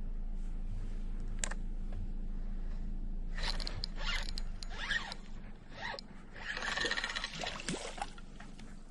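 Fishing reel being cranked to retrieve line, in several spells over the second half, after a single sharp click about a second and a half in.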